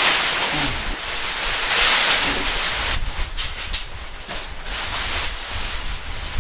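Tent rainfly fabric rustling and swishing as it is pulled and spread over the tent's pole frame, with a couple of sharp clicks about halfway through.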